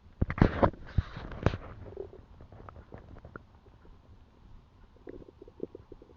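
A person's stomach rumbling and gurgling: a loud burst of gurgles in the first second and a half, then quieter bubbling pops, and a quick run of small pops near the end.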